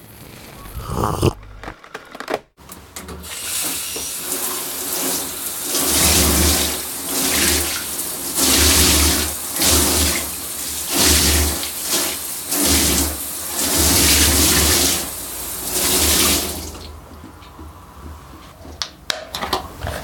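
Shower running: a spray of water that surges and eases about once a second, starting a few seconds in and stopping near the end.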